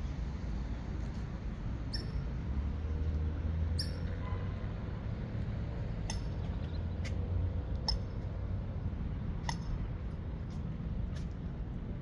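Lakeside outdoor ambience: a steady low rumble with short, high squeaks or chirps every second or two.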